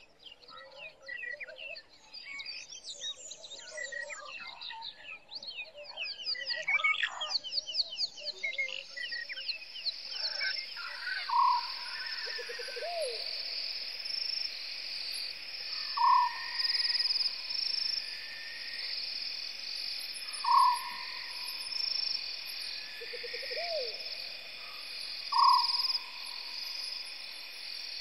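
Bushveld ambience at dusk: a chorus of small birds chirping, giving way after about nine seconds to a steady pulsing insect trill. Over the trill a short single-note call repeats about every four to five seconds, and a lower call comes twice.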